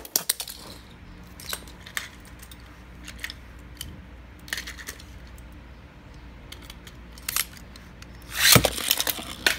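Light plastic clicks and taps around a Beyblade stadium, then about 8.5 s in a loud rasping burst as Beyblade tops are launched into the plastic stadium, followed by their spinning.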